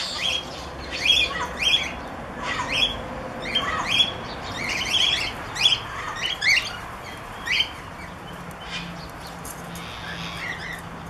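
Rose-ringed parakeets squawking: a run of short, shrill, falling calls, about two a second, that thins to a few faint calls over the last three seconds.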